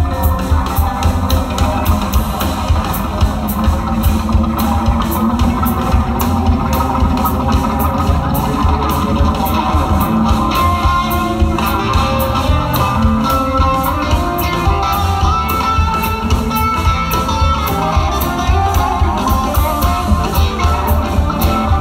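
Live band playing an instrumental passage: electric guitar over electric bass, with drums keeping a steady beat.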